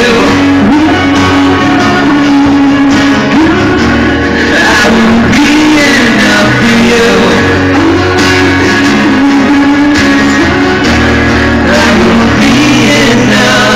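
Live rock band playing loud, a singer's voice carrying the melody over electric guitar.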